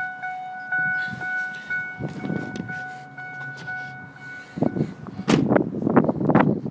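Ford F-150 cab warning chime, a rapid repeated electronic ding about three times a second, that stops about four seconds in. It is followed by loud gusts of wind noise and rustling on the microphone.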